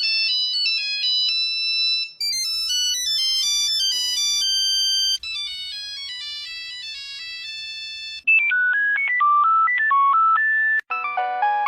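A run of Nokia mobile phone ringtones: short electronic melodies, each cut off after two or three seconds and replaced by the next, about five different tunes in all.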